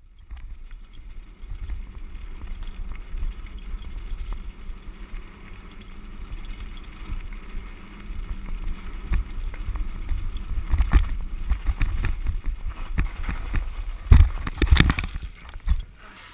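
Mountain bike rattling down a rough gravel road: wind buffets the camera microphone over the crunch of tyres on loose stones. The knocks and jolts get denser and louder about ten seconds in, with the hardest hits near the end.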